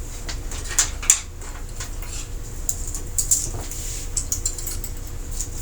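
Thin plastic sheets being handled and laid over a TV's LED backlight panel: scattered light clicks and crinkles over a low steady hum.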